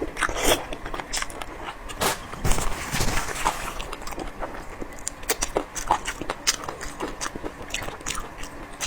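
Close-up eating sounds of boneless chicken feet being bitten and chewed: a continuous run of irregular clicks and smacks from the mouth, thickening into a denser, noisier patch about two and a half seconds in.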